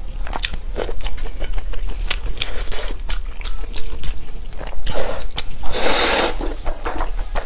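Close-up eating sounds: wet chewing and biting with many short clicks and crackles, and a longer, louder rush of noise about six seconds in.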